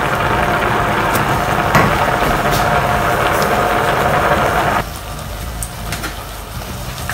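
A saucepan of macaroni and diced potato boiling hard in stock, with a steady bubbling. About five seconds in it drops suddenly to a much quieter bubbling, the water almost boiled away.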